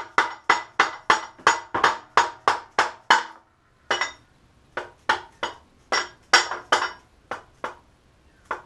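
A rubber mallet striking a dowel held against a motorcycle swing arm pivot bolt, driving the bolt through the frame. Each blow is sharp with a short metallic ring. The blows come fast and steady, about three a second, for a little over three seconds, then after a brief pause they turn slower and irregular.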